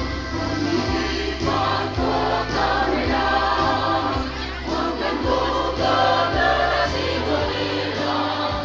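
A school choir singing a march in unison over instrumental accompaniment with a steady stepping bass line; the voices come in about a second and a half in.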